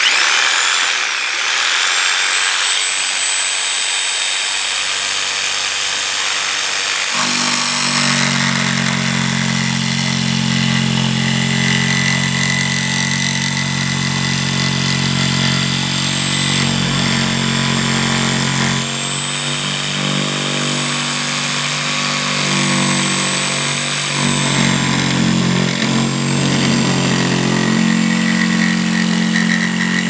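Corded DeWalt jigsaw running and cutting through a board, a continuous saw noise with a high whine that comes and goes.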